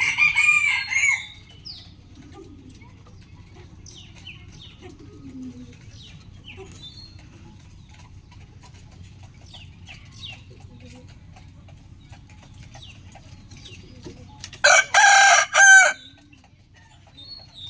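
Rooster crowing: a loud crow at the very start, then faint short chirps over a steady low background, then a second loud crow about fifteen seconds in, in three parts with short breaks.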